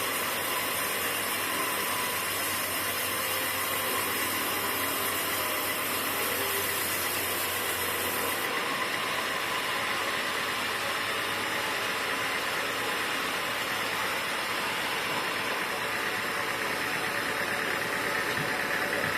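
Sawmill machinery running steadily with a continuous mechanical din. A low hum and a high hiss cut off about eight and a half seconds in, while the rest of the machine noise carries on.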